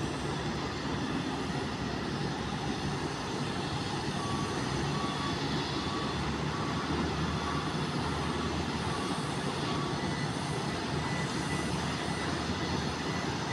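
Steady low rumble of airport apron noise from aircraft and ground traffic. A vehicle's reversing alarm beeps about every two-thirds of a second from about four seconds in until about ten seconds in.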